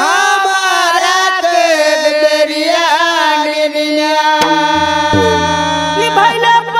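Bhojpuri devotional song: a male voice holding long, wavering sung notes over musical accompaniment. About four and a half seconds in, low bass notes come in beneath it.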